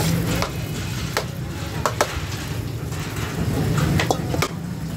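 Metal bowl scooping and scraping rice out of a large aluminium cooking pot, with a few sharp metal-on-metal clinks, over a steady low background hum.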